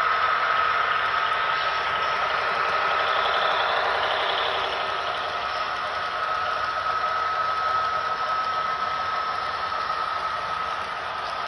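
HO scale model freight cars rolling past on the track: a steady rattling rush of small metal wheels on rail with a steady high whine, easing slightly toward the end.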